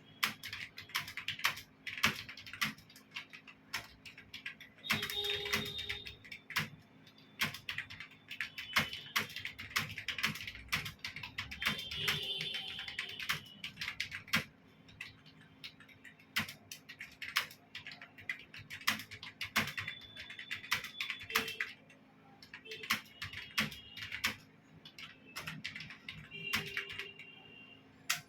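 Computer keyboard being typed on fast, a dense irregular stream of key clicks in runs with brief pauses.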